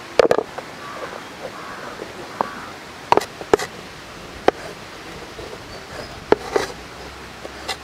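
Kitchen knife working fruit on a wooden cutting board: irregular sharp knocks and scrapes, a quick cluster at the start and a few single taps after, as papaya seeds are scraped out and a green banana is trimmed.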